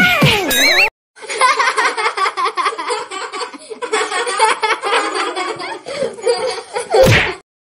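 A cat's drawn-out yowl ends, cut off about a second in. Then a person laughs hard in quick repeated bursts for about six seconds. It ends with a short, loud burst just before silence.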